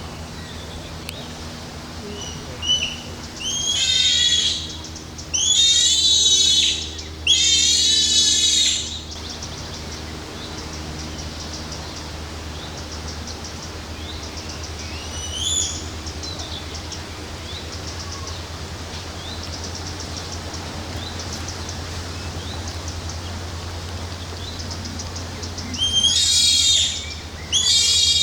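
Baby bonobo calling in high-pitched, wavering cries of a second or two each, with a run of three a few seconds in and two more near the end, over a steady low hum.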